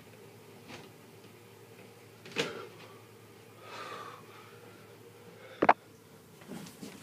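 Handling noises over a faint steady hum: a knock about two and a half seconds in, rustling near four seconds, and a sharp, loud knock near the end as the camera is picked up and moved.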